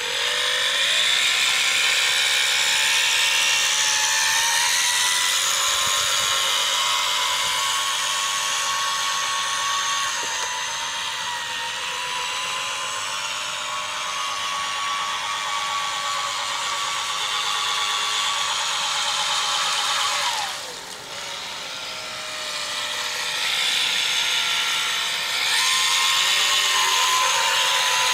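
Electric outboard drive of a radio-controlled racing hydroplane whining at speed across the water. About twenty seconds in the pitch drops as the throttle comes off, then rises again a few seconds later.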